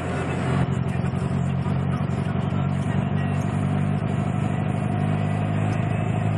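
Mazda MX-3's 1.6 L four-cylinder engine running at low revs with an uneven, stuttering note. It is misfiring under load, which the owner suspects may need new spark plugs and wires.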